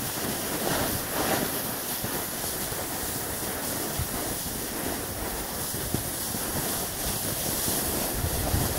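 Steady rushing and scraping of a snowboard sliding over snow, with wind on the microphone.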